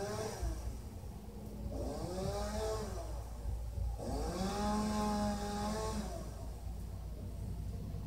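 Chainsaw revving up and dropping back several times while cutting up a fallen pine tree; about halfway through it is held at high revs for over a second before falling away.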